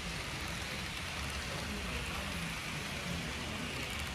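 Steady rolling hiss of a long model freight train's wheels running along the layout's track, with faint voices in the room behind it.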